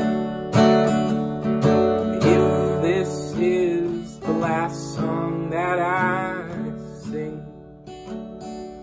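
Acoustic guitar with a capo, strummed gently about once a second, under a soft wordless hummed line in the middle; the playing grows quieter near the end.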